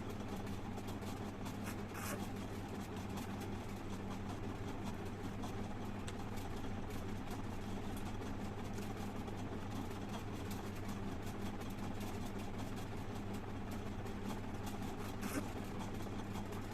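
A steady low hum, with a brief faint noise about two seconds in and another near the end.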